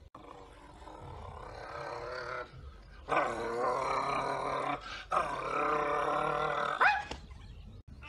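A boy growling through something clenched in his teeth, trying to frighten someone: a fainter growl swelling over the first two and a half seconds, then two long loud growls with a short breath between them, the last ending in a rising yelp.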